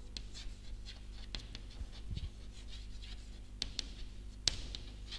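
Chalk writing on a blackboard: a run of light, irregular taps and scratches as the letters are formed, with a few sharper clicks of the chalk striking the board near the end.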